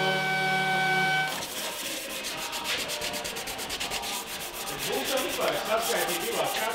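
A steady held tone cuts off about a second in, followed by rapid, even rubbing or scraping strokes, several a second.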